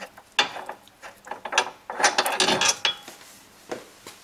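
Hand ratchet wrench clicking in uneven runs as the last front axle subframe bolt is turned out, the clicks densest about two seconds in.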